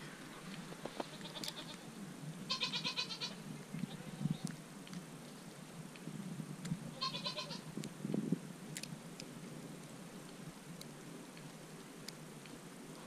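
Dairy goats bleating twice, each call short and wavering, about two and a half seconds in and again about seven seconds in.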